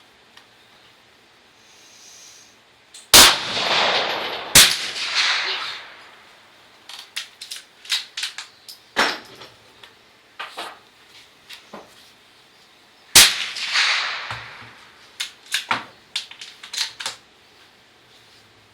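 Mossberg 802 Plinkster .22 LR bolt-action rifle firing three shots, two close together about 3 and 4.5 seconds in and one near the 13-second mark, each with a short echo. Between the shots come runs of quieter sharp metallic clicks from the bolt being worked.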